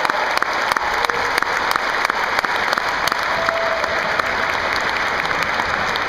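Audience applauding steadily, a dense wash of many hands clapping with individual claps standing out.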